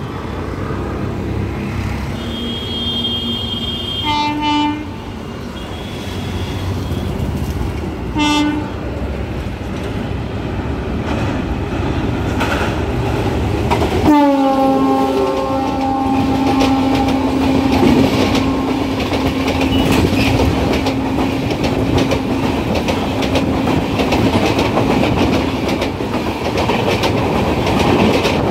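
Indian Railways electric locomotive hauling an express train past at close range. Two short horn blasts come as it approaches, about four and eight seconds in. About halfway through, a long horn blast drops in pitch as the locomotive passes and holds for about twelve seconds over the clickety-clack and rumble of the passing coaches.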